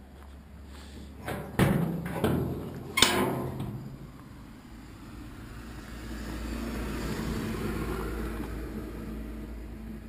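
Front luggage lid of a 1983 Zastava 750 LE being unlatched and lifted open: a few sharp metal clunks with a short ring, the last the loudest, within the first three seconds. A softer low rumble follows for several seconds.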